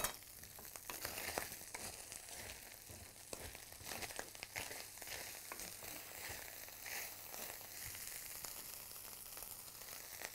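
Ground sausage meat and sliced black olives sizzling in a stainless-steel frying pan, stirred and turned with a wooden spatula, with short scraping clicks over a steady hiss.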